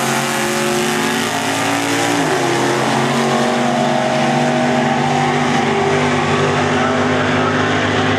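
A 1955 Chevrolet drag car and a second drag car at full throttle, accelerating hard down the strip just after the launch. The engine pitch climbs, drops at a gear change about two seconds in, then holds high as they run on.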